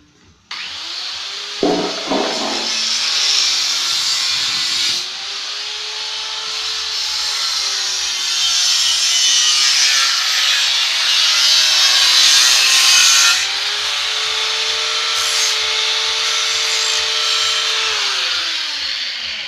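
Handheld power tool working on car body sheet metal, its motor running at a steady pitch that sags and recovers as it bites, with a loud hiss of metal being worked. It starts suddenly about half a second in and winds down near the end.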